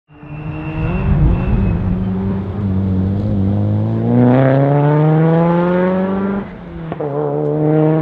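Mitsubishi Lancer Evolution VIII rally car's turbocharged four-cylinder engine pulling hard, its pitch climbing steadily for several seconds. About six and a half seconds in it dips briefly, as on an upshift, then pulls again at a lower pitch.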